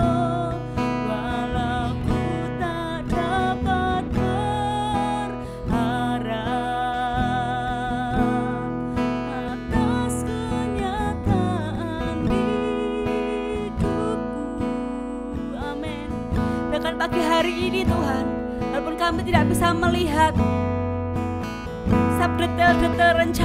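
A woman singing a worship song with vibrato, accompanied by a strummed acoustic guitar.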